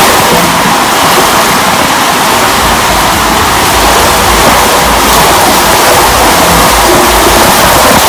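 Loud, steady rush of wind and road noise from a moving vehicle, with low wind buffets on the microphone in the middle.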